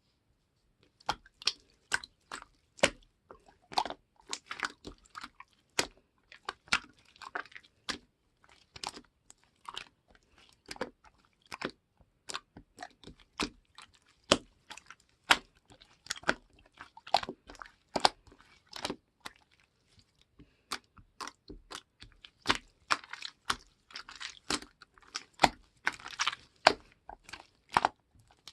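Slime being pressed, squeezed and folded by hand, giving an irregular stream of sharp clicks and pops as air pockets burst.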